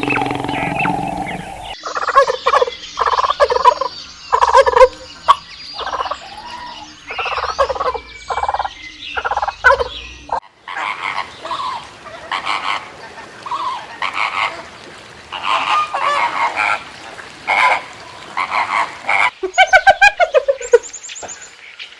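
Farm birds calling: several short clips in a row of repeated pitched calls, ending in a quick run of falling calls near the end.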